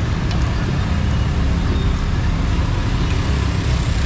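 Steady street traffic noise, a constant low rumble of passing engines with a few faint clicks.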